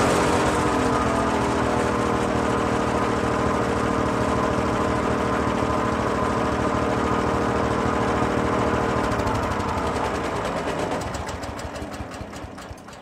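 Garden wood shredder running steadily. About ten seconds in it is switched off: its pitch drops and it winds down, fading with a ticking that slows as it coasts toward a stop.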